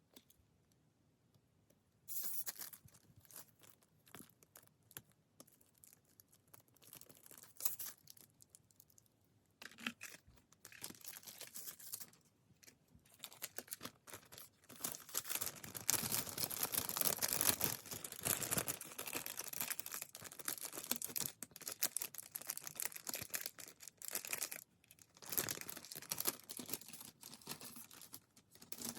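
Packaging being torn open and crinkled by hand. The rustling comes in irregular bursts starting about two seconds in and becomes dense and nearly continuous from about ten seconds in.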